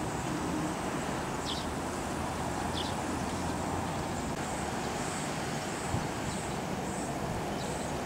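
Steady outdoor street ambience: an even low rumble of distant traffic. A couple of faint high chirps sound early on, and past the middle a run of soft high pulses repeats about twice a second.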